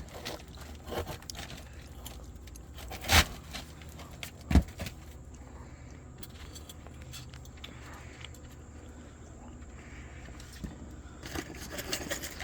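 Metal roofing tools being handled on an asphalt shingle roof: light clinking and scraping with two sharp knocks about a second and a half apart, over a low steady rumble.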